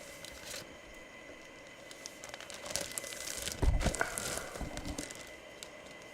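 Plastic packaging crinkling and rustling as it is handled, with scattered clicks and a dull thump about three and a half seconds in.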